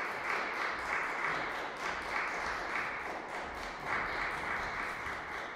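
Audience applause, many hands clapping in a large reverberant concert hall, dying away at the very end.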